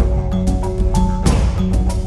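Background music with a steady beat, a bass line and held pitched notes.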